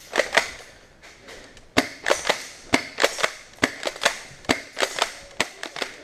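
Airsoft guns firing single shots: sharp pops, three close together at first, then after a short pause a quick irregular string of about four a second.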